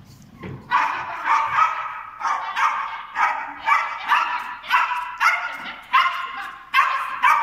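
A dog barking repeatedly in a fast, even rhythm, about two to three high-pitched barks a second, starting about half a second in.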